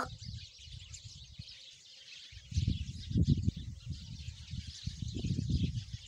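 House sparrows chirping in a dense, continuous chatter. From about two seconds in, a louder, irregular low rumbling joins it.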